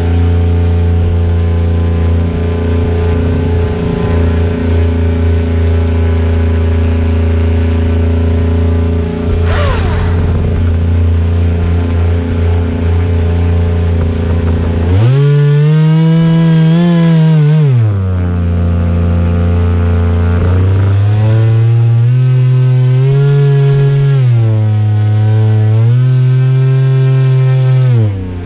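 Onboard sound of an RC boat's motor running at a steady pitch. About fifteen seconds in it revs up for a few seconds and drops back, then rises and falls in pitch several times towards the end.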